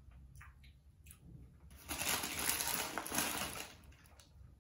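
A takeaway bag being crumpled and squashed flat, a crackling rustle lasting about two seconds that starts a little under two seconds in.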